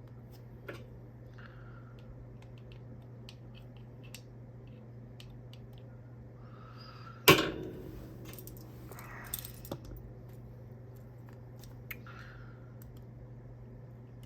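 Small hard parts of a fidget toy being handled and worked at by hand: scattered light clicks and rustles, with one loud sharp clack that rings briefly about seven seconds in.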